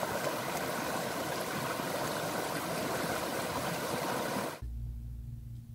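Steady rushing noise like running water, which cuts off abruptly about four and a half seconds in and gives way to a low steady hum.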